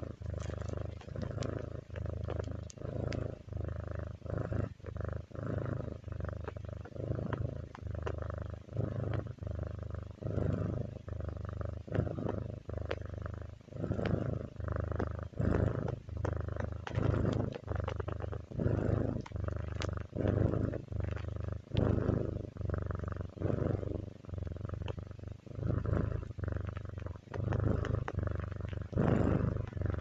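White Turkish Angora cat purring close up, a low rumble that swells and eases about once a second with its breathing.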